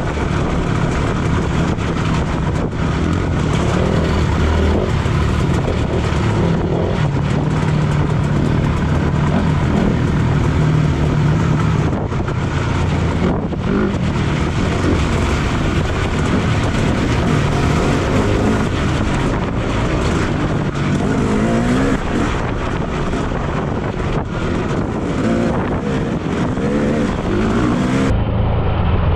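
Two-stroke KTM 250 EXC dirt bike engine running and revving up and down as it is ridden through a muddy trail.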